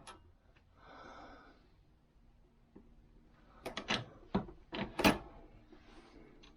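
A brief scrape, then a quick run of sharp clicks and knocks, the loudest about five seconds in: small metal parts being handled at a reloading press while a star-crimped 45 ACP case is checked.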